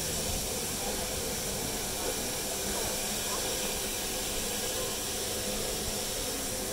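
Coal-fired steam locomotive standing still, giving off a steady hiss of steam.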